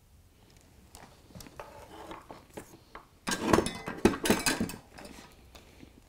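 Hands handling wiring and small tools at a workbench: scattered light clicks and rustles, then a louder stretch of rustling and clattering for about a second and a half in the middle.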